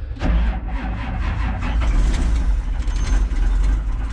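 Wheel loader's diesel engine being cranked over on a cold start, a heavy rough rumble, struggling to start on batteries the operator calls low at 27 volts.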